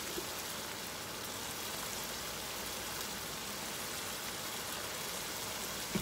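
Ground beef and onion sizzling steadily in a large frying pan.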